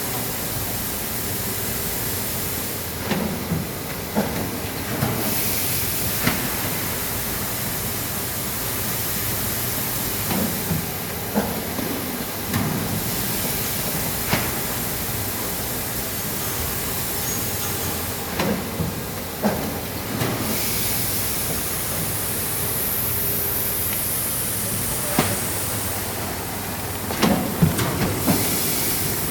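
Sack filling machine running: a steady mechanical noise, with a hiss and a cluster of sharp clacks coming back about every seven to eight seconds as it works through its cycle.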